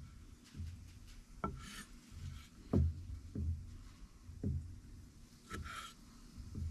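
Scraping and rubbing on a cutting board as cut tomatoes are pushed aside, with about half a dozen irregular light knocks.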